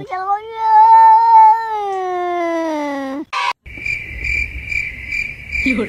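A cat's long drawn-out meow, about three seconds long, rising slightly and then sliding down in pitch. After a brief break comes a steady high-pitched chirping that pulses about twice a second.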